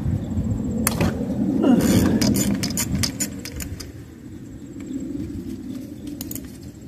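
Metal hand tools clinking and rattling as a ratchet and socket extension are handled over the coil packs for spark-plug removal. There is one sharp click about a second in, a quick run of irregular clinks soon after, and a couple more near the end.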